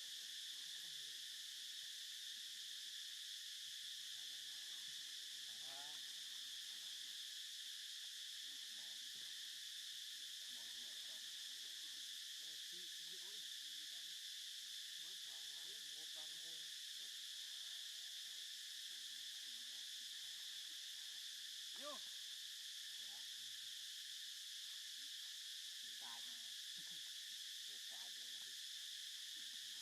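Steady high-pitched drone of an insect chorus, with faint scattered short sounds underneath.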